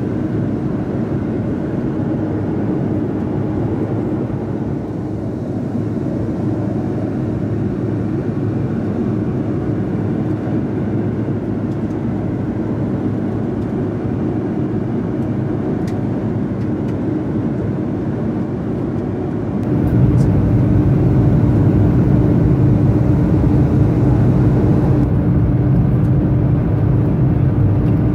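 Steady cabin noise of an Airbus A330-300 airliner in flight, a constant rush with a faint even hum. About twenty seconds in it becomes louder and deeper.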